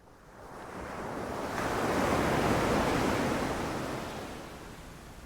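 Ocean wave breaking on the shore: a rush of surf that swells to a peak about two seconds in, then washes back and fades.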